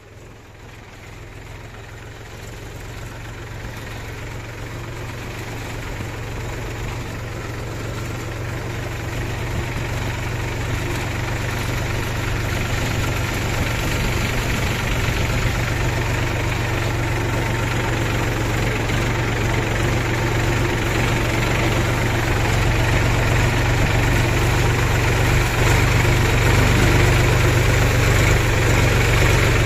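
Farm tractor's diesel engine running steadily as the tractor drives slowly, with a deep steady hum. It grows gradually louder over the first half, then holds.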